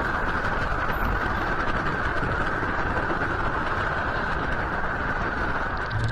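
A steady rushing, rumbling noise that stops abruptly near the end.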